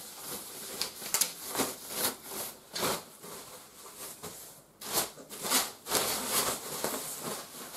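Protective wrapping rustling and rubbing as it is pulled off a subwoofer, in a string of short, uneven swishes and crinkles.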